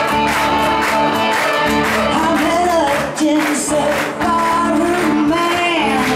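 Live pop-rock band playing, with a woman singing lead over electric guitar and keyboards.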